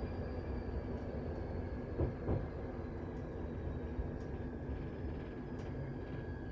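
London Underground 1972 Tube Stock train running, heard from on board: a steady rumble with a constant high tone, two short knocks about two seconds in, and a few faint ticks.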